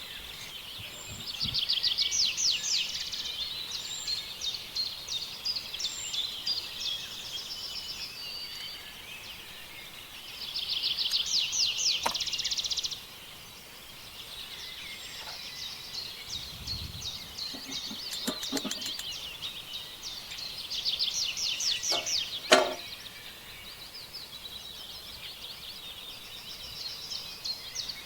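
Small birds chirping in bursts of rapid, high-pitched trills, a second or two long, several times over. A single sharp knock sounds about 22 seconds in.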